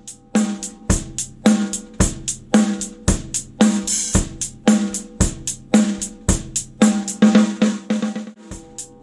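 Drum kit played in a steady beat, the ringing snare of a Tama Warlord Valkyrie snare drum on the backbeat over bass drum and hi-hat, with a crash cymbal about four seconds in and a brief break near the end.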